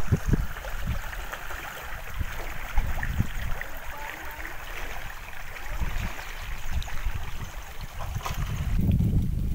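Outdoor noise: wind buffeting the microphone in uneven low rumbles, over a steady hiss of moving air. The rumbling grows stronger near the end.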